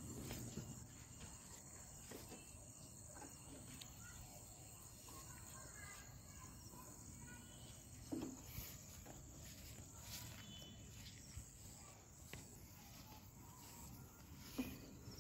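Faint, steady high-pitched trill of crickets, with a couple of brief soft sounds about eight seconds in and near the end.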